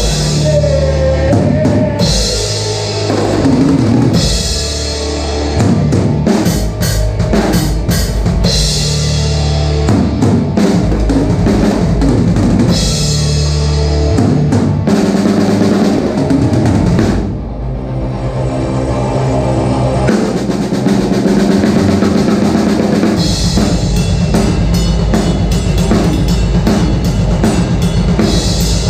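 Band music driven by a drum kit (bass drum, snare and cymbals) over sustained low bass notes. It thins out briefly just past the middle, then the full band comes back in, busier toward the end.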